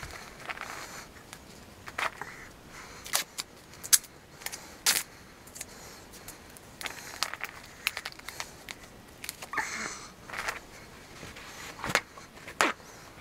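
Handling noises of tape, paper towel and a plastic vacuum-sealer bag: an irregular string of sharp crackles and clicks with short rustles, the loudest snaps a few seconds in and near the end.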